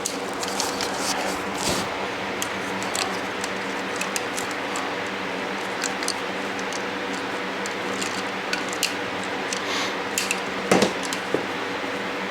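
Light clicks and clatter of battery charger clamps and leads being handled and fitted to a small four-wheeler battery, with a louder clack near the end, over a steady hum.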